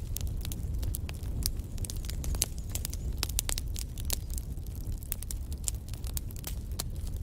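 Wood fire burning in a fireplace: a steady low rumble of the flames with frequent, irregular sharp crackles and pops from the burning logs.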